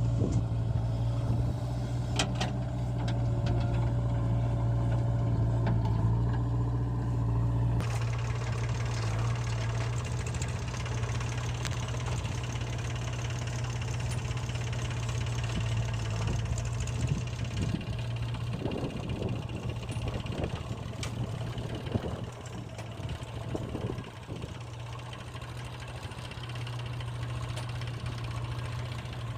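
Heavy diesel engine running steadily at constant speed, with a change in the sound about eight seconds in and a few clanks in the second half.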